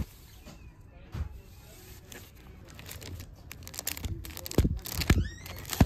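Comic books in plastic bags and boards being flipped through in a bin: sleeves crinkling and rustling, with sharp clacks as the books knock against each other, busier and louder in the second half.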